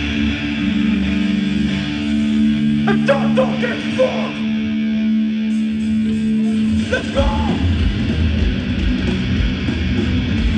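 Live hardcore band through a festival PA: electric guitars hold a ringing chord, with a voice shouting briefly about 3 seconds in, then the drums and full band come in about 7 seconds in.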